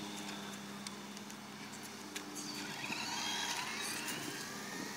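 Electric motor of a small radio-controlled off-road truck whining, its pitch rising and falling as the truck speeds up and slows, with a few small clicks.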